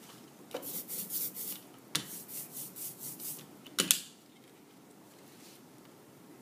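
Quick scratchy rubbing strokes and clicks on a wooden worktable as an inked foam printing plate and a rubber brayer are handled, ending in a loud double knock just before four seconds in.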